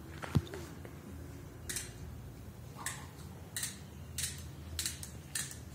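Small plastic toy handled in the hands: one sharp click about a third of a second in, then a run of short, crisp clicks about every half second.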